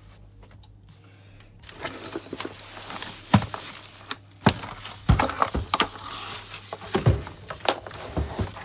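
Packaging being unpacked by hand: crinkling and rustling with sharp clicks and knocks as items are taken out of a box. It starts about a second and a half in.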